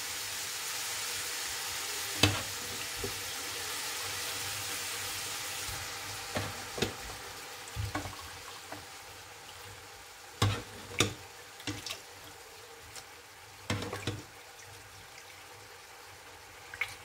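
Onions and pieces of boiled meat sizzling in a hot frying pan, a steady hiss that fades after about six seconds. A spoon knocks against the pot now and then, several sharp clicks, as the meat is lifted out of its broth.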